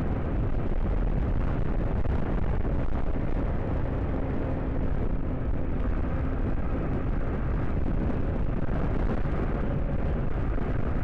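Motorcycle under way at speed: steady low wind rumble on the rider's microphone, with the engine's drone beneath it and a faint steady engine tone for a few seconds in the middle.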